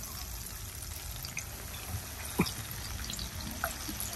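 Breaded chicken feet deep-frying in a pan of hot oil: a steady bubbling hiss with scattered small pops, one sharper pop about halfway through.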